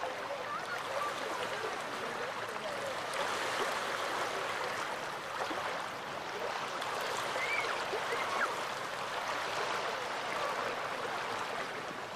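Waves washing onto a sandy Baltic beach, a steady rushing wash of water that swells and eases slightly.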